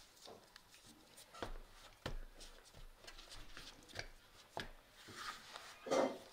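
Hands kneading and pulling apart soft bread dough in a floury plastic bowl: scattered soft pats, slaps and rubbing, the loudest near the end.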